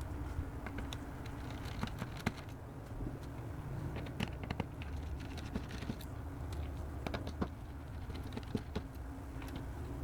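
Irregular small clicks and taps of hand tools working on a MacBook Air's internal parts and screws, over a steady low hum.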